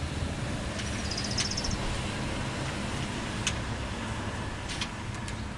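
Steady low outdoor rumble with a few sharp clicks as washers and wing nuts are fitted back onto the bike rack's head bolts in a pickup truck bed. A short, high, evenly spaced trill comes about a second in.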